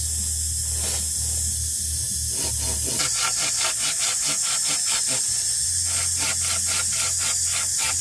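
Hand pruning saw with a curved blade cutting through a wooden pole in quick, even back-and-forth strokes, about four a second, starting about two and a half seconds in, over a steady high hiss.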